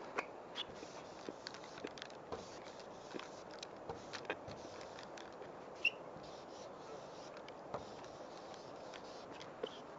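Molotow Speedflow marker's felt nib scraping and ticking on a smooth wall panel as a tag is written: short scratchy ticks at irregular intervals over a steady background noise, the sharpest about six seconds in.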